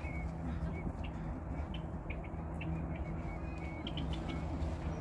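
Faint short bird chirps, repeated every second or so, over a steady low hum, with a few small ticks.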